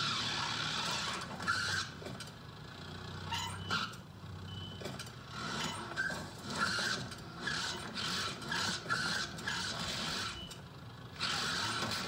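Car tyres squealing in a long series of short screeches as the car lurches back and forth, over a low engine hum in the first few seconds. Heard as played from a TV.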